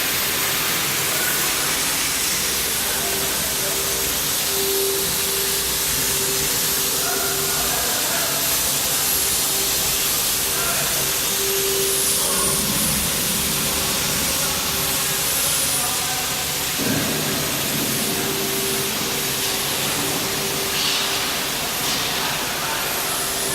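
CNC tank head polishing machine running, its polishing head working over a dished tank head: a steady hiss with a constant hum underneath.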